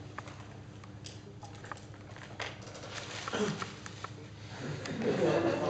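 Sheets of paper being handled and shuffled on a table: scattered light rustles and taps over a steady low room hum. A voice is heard briefly a little after the midpoint and again near the end.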